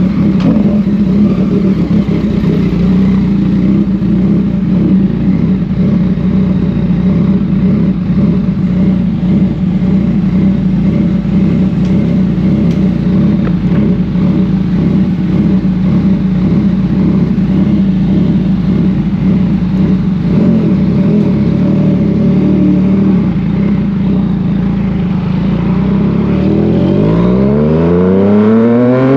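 Yamaha MT-09 three-cylinder engine running at a steady note, then revving up with a sharply rising pitch in the last few seconds.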